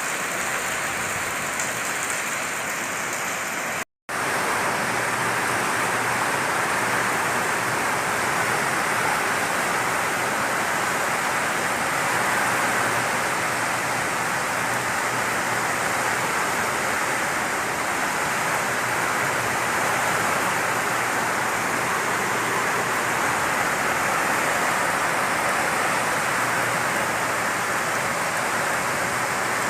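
Heavy rain pouring down in a steady rush, with a momentary dropout about four seconds in.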